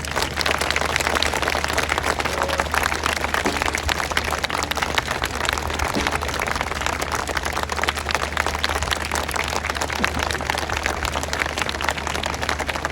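Crowd applauding steadily: a dense patter of many hands clapping at the end of a marching band's performance.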